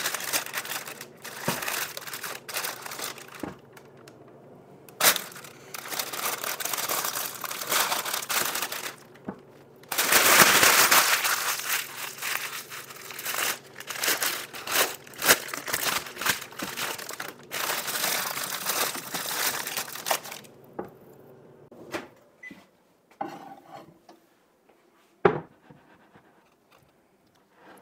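Parchment paper being crumpled and pressed into a glass baking dish: loud crinkling in stretches for about twenty seconds, loudest around ten seconds in. After that, only scattered quieter handling sounds and one sharp knock near the end.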